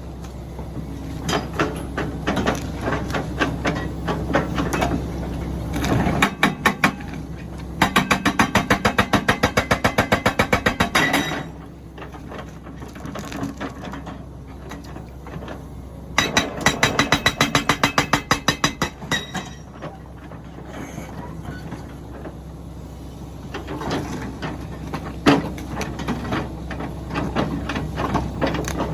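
Rammer hydraulic breaker on a Komatsu PC400LC excavator hammering stone in runs of rapid, evenly spaced blows lasting a few seconds each, three times, with the excavator's diesel engine running steadily underneath.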